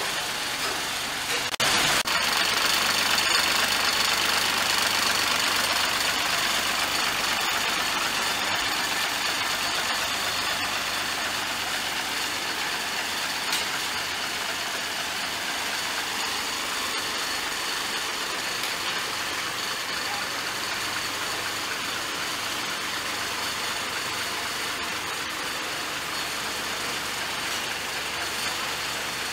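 Truck diesel engine idling steadily under a strong hiss, stepping a little louder about two seconds in.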